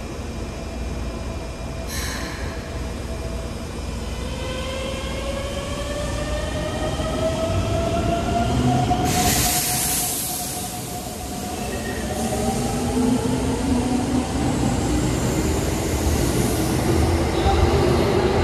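Keikyu 600 series electric train (set 602F) pulling away, its Mitsubishi GTO VVVF inverter whining in several tones that climb in pitch as it accelerates. There is a brief hiss about two seconds in and a louder burst of hiss about nine seconds in, and lower rising tones grow louder toward the end.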